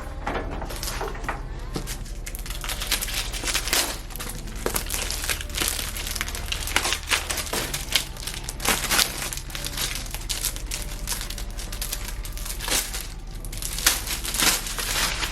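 Packaging being handled, with repeated crinkling and crackling and short sharp rustles through the whole stretch, over soft background music.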